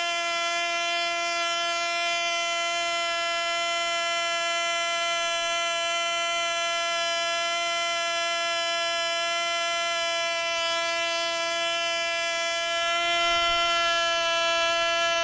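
MP Jet .061 model airplane engine running flat out on a test stand at about 20,000 rpm, a steady high-pitched buzz with no misses. It is being broken in. It gets a little louder near the end.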